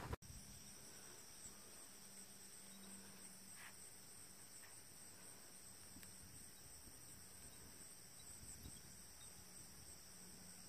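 Faint, steady high-pitched trilling of crickets, with a faint low hum beneath it.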